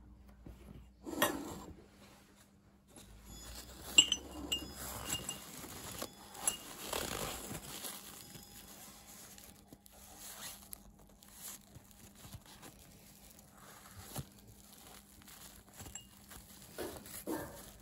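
Blue paper shop towel rustling and crumpling as a small brass part is wiped dry of acetone, with a few small clinks and clicks of glass and metal; the sharpest click comes about 4 s in.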